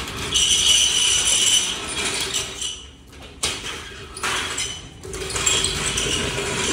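A burst air suspension bag (air spring) scraping and knocking against a wall and a metal window grille as it is pressed and moved about by hand. A long rasping scrape, a sharp knock about three and a half seconds in, then more scraping.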